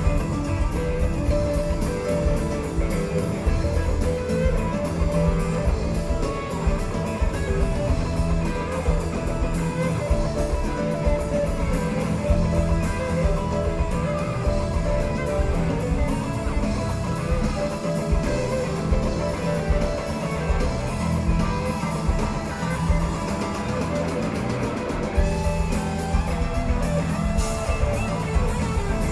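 Live rock band playing an instrumental stretch, electric guitar to the fore over a steady drum kit beat.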